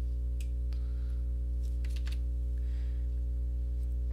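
A few scattered computer keyboard and mouse clicks over a steady low electrical hum from the recording setup.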